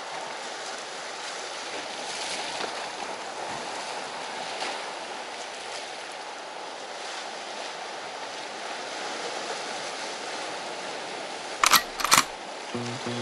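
Steady wash of sea waves against a breakwater, with two brief, loud, sharp sounds close together near the end.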